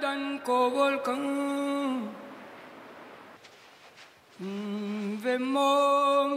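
A single voice singing long, held notes with no instruments, in two phrases with a pause of about two seconds between them.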